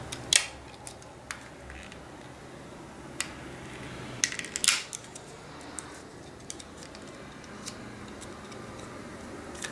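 Small plastic clicks and handling noises from a lipstick case being worked open with some difficulty. There is a sharp click about half a second in and a quick cluster of clicks near the middle.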